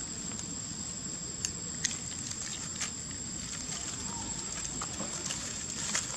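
Monkeys moving about on dry leaf litter: scattered light crackles and ticks over a steady high-pitched hum.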